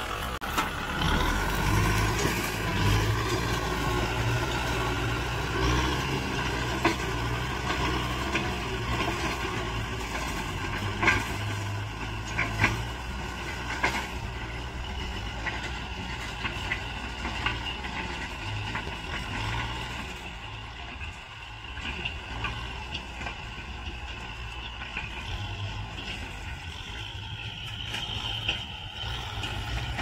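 Kubota M6040 tractor's four-cylinder diesel engine running steadily as the tractor works a dry field with a front dozer blade and a rear disc implement, with a few sharp knocks around the middle. The engine grows somewhat fainter in the second half as the tractor moves away.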